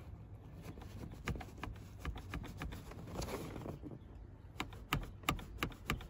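Plastic hook under the left side of a 2018 Toyota Corolla's driver seat clicking again and again as a finger presses it, a few clicks a second with some louder ones near the end: the source of the seat's long-hunted clicking noise.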